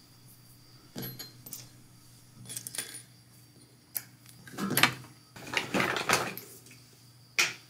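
Metal finger rings clinking and scraping on a stone countertop as they are picked up one at a time: about half a dozen short, separate clinks.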